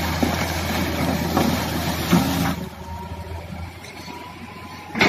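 Hitachi crawler excavator's diesel engine running, with a steady low hum and heavier noise of the bucket working mud and rock in the water for the first two and a half seconds, then settling to a quieter steady hum.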